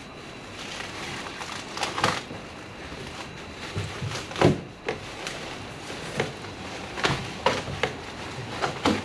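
Boat parts being handled inside a large cardboard box: cardboard scraping and rustling, broken by a string of sharp knocks, the loudest about four and a half seconds in.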